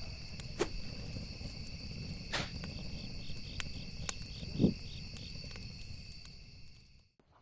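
Insects trilling in a steady high drone over a low rumble, with scattered clicks and a soft low thump about four and a half seconds in, the loudest moment; it all fades out about a second before the end.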